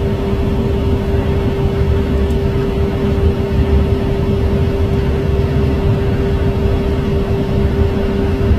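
Boeing Vertol 107 twin-turbine tandem-rotor helicopter lifting off and flying low: a loud, steady whine over the low beat of its two rotors.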